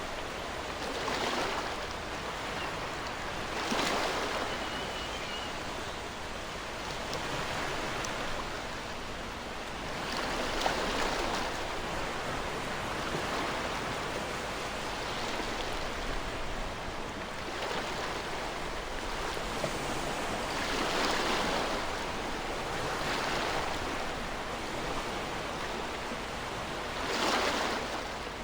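Ocean waves on a shore: a steady hiss of surf that swells every few seconds as waves break.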